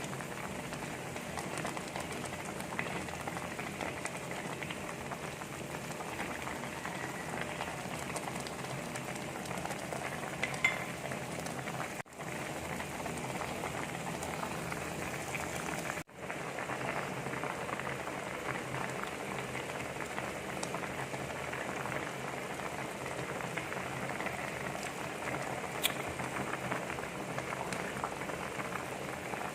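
Pot of tilapia and vegetable broth boiling, a steady bubbling hiss with a faint tick now and then, cut off for a moment twice.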